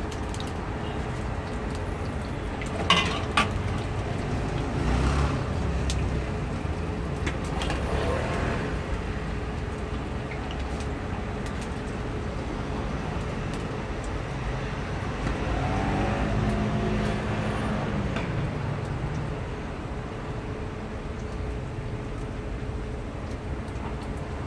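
Street traffic: cars driving by over a steady background hiss, with one vehicle growing louder and fading about two-thirds of the way through. Two sharp clicks about three seconds in.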